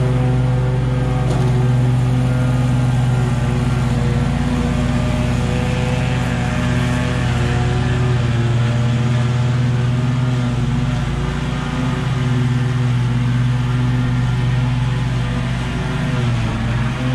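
Stand-on zero-turn lawn mower engine running steadily while the mower cuts tall, overgrown grass.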